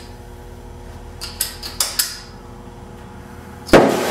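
Oxy-fuel cutting torch being lit: a handful of sharp metallic clicks, then about three and a half seconds in the torch catches with a sudden pop and settles into a loud, steady hiss of flame.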